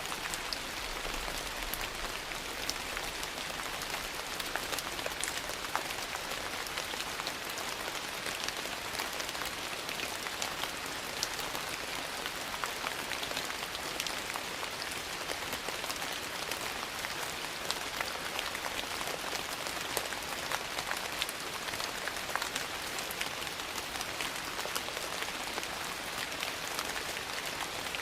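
Steady rain falling, an even hiss with many small, sharp ticks scattered all through it.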